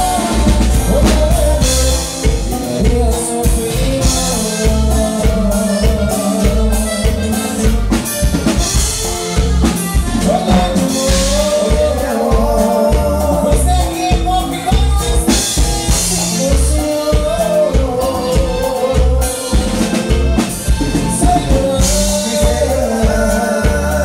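Live dance band playing, with a singer over a steady drum-kit beat and bass.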